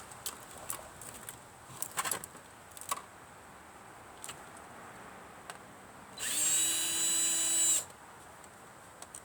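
Power drill, used to back out screws from old electronics, runs once for about a second and a half with a steady whine. Scattered light clicks and knocks come before it.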